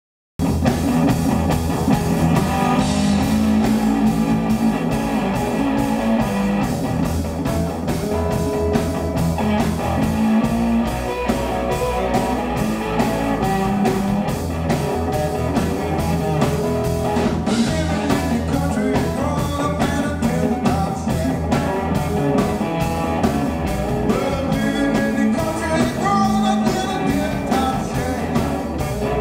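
Live blues band playing: electric guitar over bass and a steady drum beat, with a man's singing voice.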